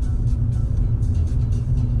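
Low, steady road and engine rumble inside a moving car's cabin, with music playing that has a regular beat.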